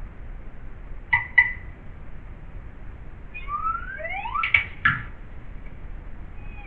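Early sound-cartoon effects over a steady hiss from the old soundtrack: two short high squeaks about a second in, then several quick rising whistled glides and two sharp clicks near the middle.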